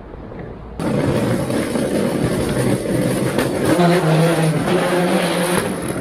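Wheels of a hand-pulled trekking trailer rolling loudly over a tiled floor, setting in abruptly just under a second in, with a low hum joining for a couple of seconds around the middle.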